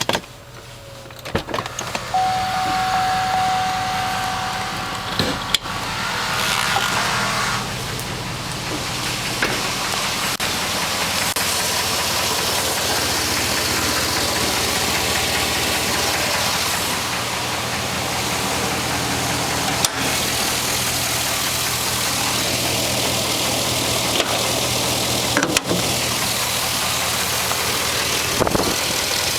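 A 2006 Trailblazer SS's 6.0-litre LS2 V8 starting and settling into a steady idle, with a steady high whine for a few seconds just after it catches. The knock under the idle is what the owner calls piston slap on a cold start.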